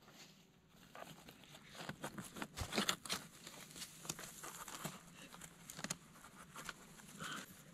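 A knife and hands digging and prying in soil and dry leaf litter around the base of a large mushroom clump: irregular crackling, scraping and tearing, busiest a couple of seconds in, with a few sharper snaps.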